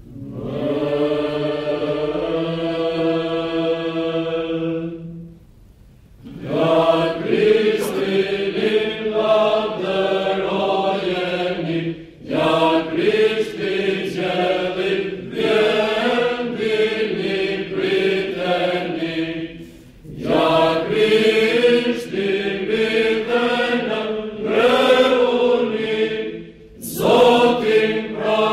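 Mixed choir of men and women singing Byzantine chant a cappella in phrases, with a steady low held note beneath the moving melody. It opens on a long held chord, with brief pauses for breath between phrases.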